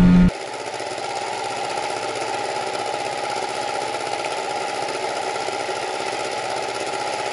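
Boat outboard motor idling steadily. At the very start, a louder stretch of the boat running under way cuts off abruptly.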